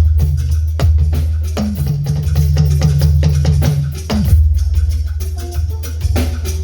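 Live band playing an instrumental groove during a sound check: a heavy, steady bass line under busy drums and hand percussion, with no singing.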